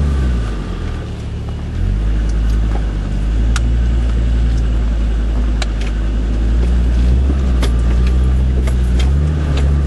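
Off-road 4x4's engine pulling at low revs, heard from inside the cab. It rises briefly at the start, drops about two seconds in, then runs steadily, with scattered sharp clicks and knocks as the vehicle rides over the rocky track.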